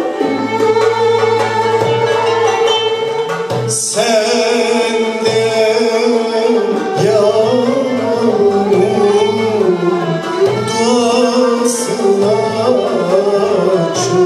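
Male solo voice singing a Turkish art music song in makam Kürdilihicazkâr, accompanied by violins and percussion keeping a steady rhythm. The voice holds a long note over the first few seconds, then moves into an ornamented, winding melodic line with vibrato.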